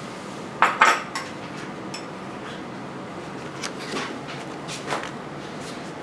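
A small ceramic bowl and a metal spoon clinking: two or three sharp clinks a little under a second in, then a few lighter taps as the spoon scoops ashta (clotted cream) from the bowl.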